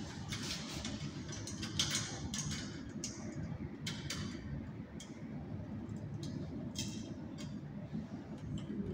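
Scattered light clicks and metallic taps from hands and hand tools working on a fan coil unit's electric fan motor, over a low steady hum.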